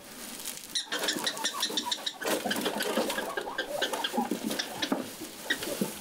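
Prairie dog giving a rapid series of short, sharp chirping barks, an agitated scolding call.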